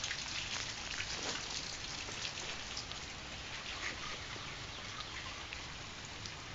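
Steady, faint hiss of outdoor background noise with scattered small ticks.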